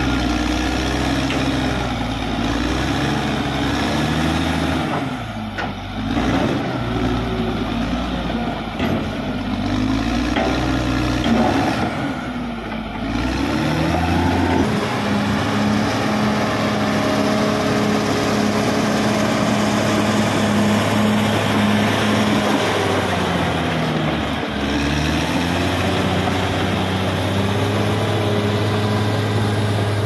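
Caterpillar D6R XL bulldozer's diesel engine working as the dozer pushes earth with its blade. Through the first half its pitch rises and falls repeatedly, then it settles into a steady note, dipping briefly once near the end.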